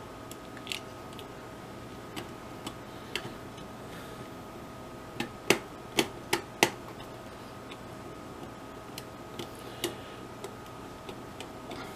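Small screwdriver and wire ends clicking and ticking against the screw terminals of a Mach3 CNC interface board as wires are fitted and tightened, with a run of four sharper clicks about halfway through. A faint steady hum sits underneath.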